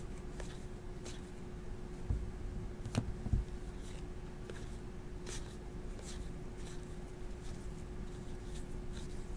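Baseball trading cards sliding one by one off a hand-held stack: faint soft scrapes and flicks at an uneven pace, a few slightly louder clicks about two to three seconds in, over a faint steady hum.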